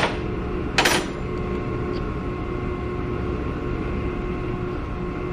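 Steady machine hum from the desktop mill, with a sharp click right at the start and a brief metallic clatter about a second in as the tooling and part are handled inside the mill.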